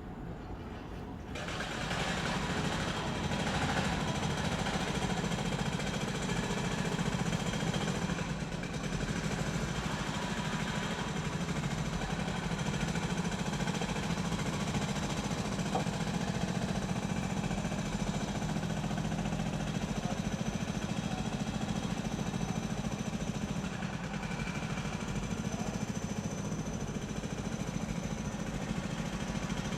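Construction site ambience: machinery running with a steady, dense rattling over a low engine rumble, kicking in suddenly about a second in.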